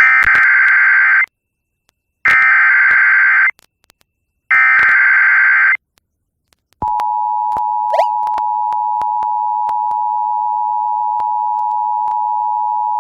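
Emergency Alert System activation. Three short buzzy bursts of SAME header data, each about a second long with about a second between them, are followed about seven seconds in by the steady two-tone attention signal. It announces a National Weather Service severe thunderstorm warning.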